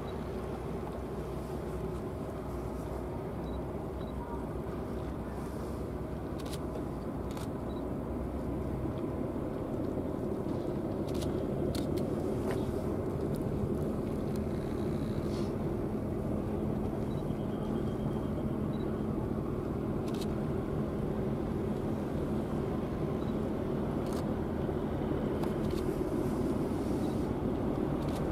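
Steady low drone of ship engines, a few dB louder from about ten seconds in, with a few faint clicks.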